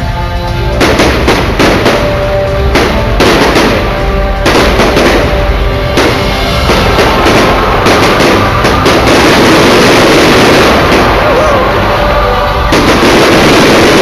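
Fireworks going off in rapid succession, many sharp bangs over the show's music played through loudspeakers, growing denser in the second half.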